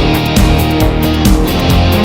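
Loud rock background music with electric guitar and a steady drum beat.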